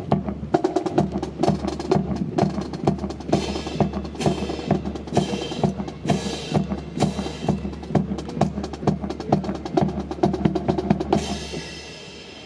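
Rifle drill team's rapid, rhythmic clacking: hands slapping rifles and rifle butts and boots striking in unison, several sharp knocks a second, stopping near the end.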